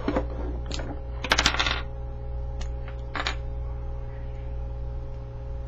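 Small hard plastic toy pieces being handled, with a few sharp clicks and a short clatter about a second and a half in, over a steady low hum.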